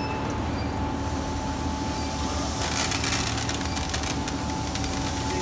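Steady hum of the granulating machine's water chiller, kept running. From about two and a half seconds in, water pours and splashes out of the tilted granule basket into a plastic crate.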